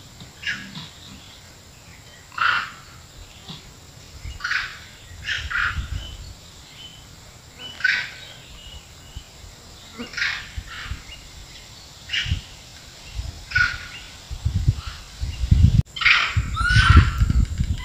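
Long-tailed macaques calling from the undergrowth: short, high chirps and shrieks repeated every second or two, a few falling in pitch near the end. Low rumbling thuds come in over the last few seconds.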